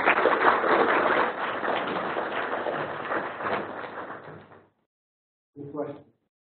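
Audience applauding, a dense patter of many hands clapping that dies away after about four and a half seconds. A brief voice follows near the end.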